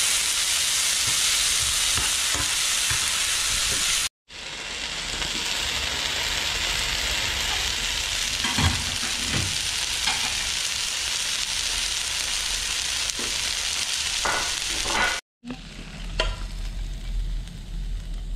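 Shredded potatoes sizzling in hot oil in a frying pan as they are stir-fried and stirred with a metal utensil. The sizzle breaks off briefly twice. In the last few seconds it is quieter, and a fork clinks and scrapes against the pan as the potatoes are pushed onto a plate.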